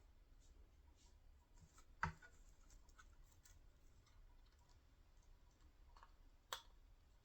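Near silence: faint room tone with scattered light ticks and two sharper clicks, one about two seconds in and one near the end, as of small objects being handled on a workbench.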